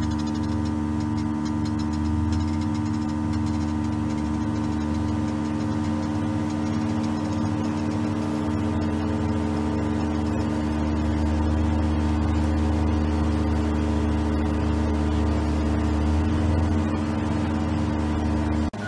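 Excavator's diesel engine running steadily while the machine lifts and swings a steel trench box: a low rumble with a steady hum. It cuts off suddenly near the end.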